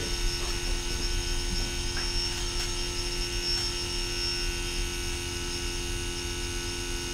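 Small tape drive motor running on a pulsed trigger circuit, giving a steady electrical hum with a faint high whine while it charges a dead battery.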